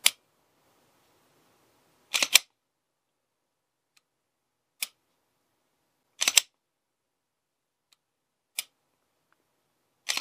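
Smith & Wesson M&P9 pistol being dry-fired in a function check: a single sharp click of the striker releasing on each trigger pull, alternating with a quick double clack of the slide being racked back and let go to reset the trigger, three times over.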